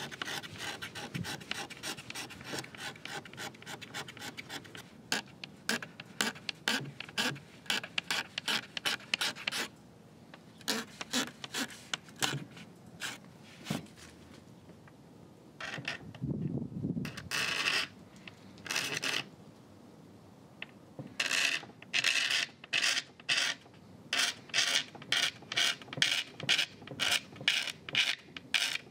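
Utility knife blade scraping leftover finish off the edge of a stripped teak table top, in runs of quick back-and-forth strokes, about three a second, with short pauses between runs.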